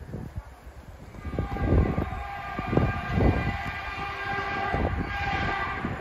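ER2 electric train's horn blowing one long blast, beginning about a second in and holding until near the end, with a few heavy low thumps underneath as the express train approaches without stopping.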